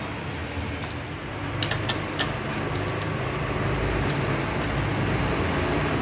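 Steady low machine hum, with a few sharp metallic clicks about two seconds in from a spanner on the bolts of a Honda Activa's transmission cover.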